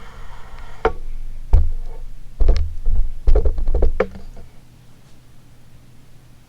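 A series of irregular knocks and clicks with heavy thuds, then quiet about four and a half seconds in, leaving a faint steady low hum.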